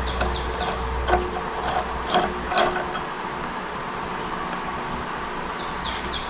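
Metal rubbing and scraping with a few light clinks, as a nut whose weld failed to hold is worked against the steel ball-joint collar in an aluminum strut arm.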